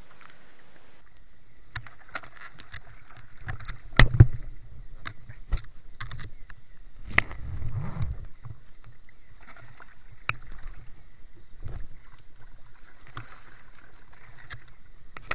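Water moving around a camera held under the water, with scattered sharp clicks and knocks and heavier thumps about four seconds and eight seconds in.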